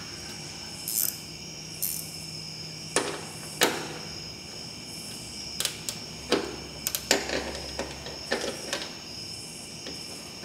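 Irregular metal clicks and clinks of hand wrenches working a stainless bolt and nut: the nut is turned while the bolt is held still, crushing a cast aluminium rivet nut into its hole.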